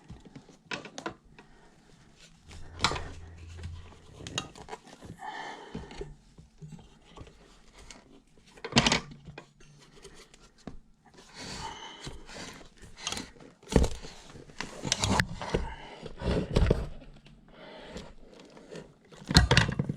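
Tyre spoons clacking and scraping against the rear wheel rim as a tyre bead is forced on by hand, in irregular knocks and scuffs, with a few sharper strikes about 9, 14 and 19 seconds in.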